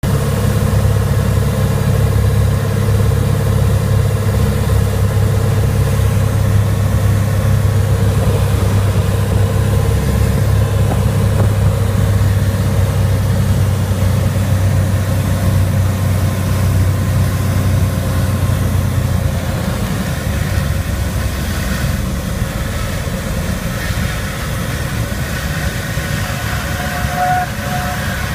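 Cessna 182's six-cylinder piston engine and propeller heard from inside the cockpit, a steady loud drone on the landing approach. About twenty seconds in the low engine note weakens and the sound thins as power is reduced for landing on the dirt strip.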